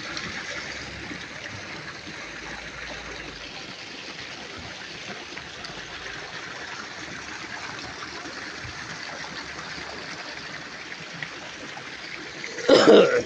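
Steady trickle of running water. Near the end, a short loud noise cuts in for about half a second.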